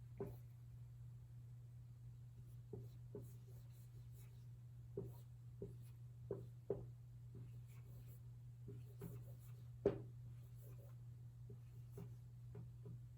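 Faint handwriting: scattered short scratches and taps of a pen or marker, the sharpest about ten seconds in, over a steady low hum.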